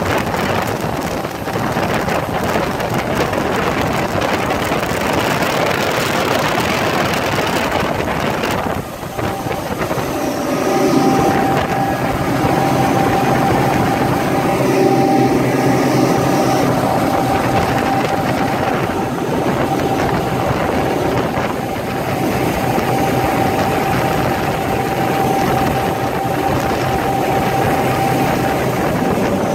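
A 2007 Fountain 38 Sportfish's triple Mercury outboard motors running steadily with the boat underway at speed, over a constant rush of wind and water. About nine seconds in, a steady engine whine comes through more clearly above the rush.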